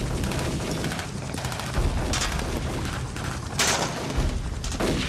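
Sustained small-arms gunfire: a dense, continuous run of rifle shots. A few louder shots stand out about two seconds in, around three and a half seconds, and near the end.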